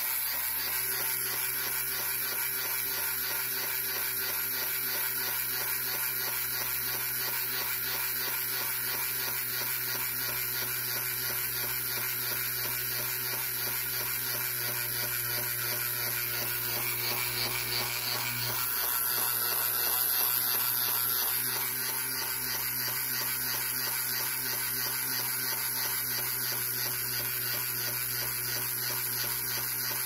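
Small battery-powered electric motor and plastic gearbox of a Tamiya Flying Seagull display kit running steadily, driving the crank that flaps the seagull's wings. It gets a little louder for a couple of seconds past the middle.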